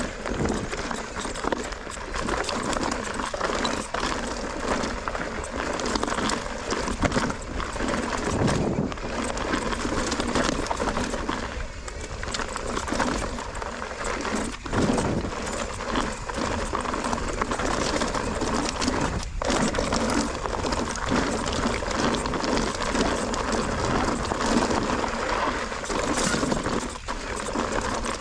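Mountain bike being ridden over a rough, rocky trail: a continuous rattle and rushing noise, broken by frequent clicks and knocks of the tyres and frame hitting stones and roots.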